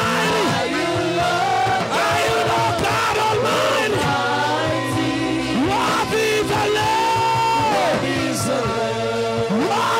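Live praise-and-worship music played loud through a PA: worship singers holding and sliding between sustained notes over steady band accompaniment.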